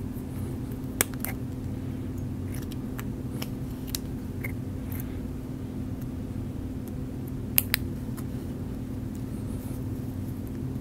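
A few sharp metallic clicks from a surgical needle driver being locked, released and handled while suturing, with a close pair of clicks about three-quarters through. A steady low hum runs underneath.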